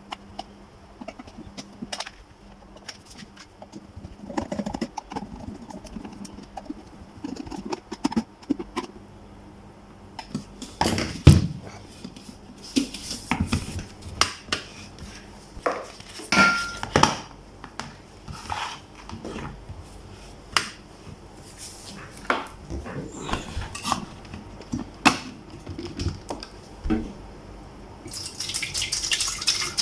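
Irregular clicks, taps and knocks of a repaired electric kettle and its parts being handled. Near the end, water starts running from a tap.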